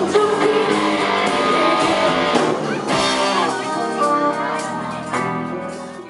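Live pop band playing with a woman singing into a microphone, electric guitar and drums prominent; the music fades out near the end.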